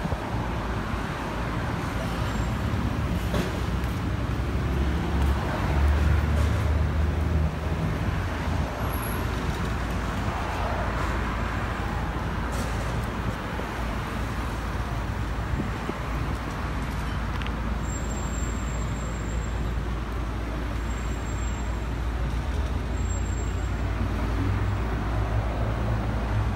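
Road traffic noise: a steady low rumble.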